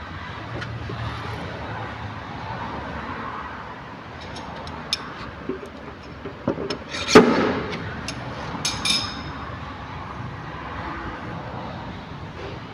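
Paintless dent repair glue-pull: a hand puller is worked on a glued tab on a car's metal side panel until the tab lets go with one loud, sharp crack about halfway through. A few lighter clicks come just before it and a short cluster just after, over a steady background hum.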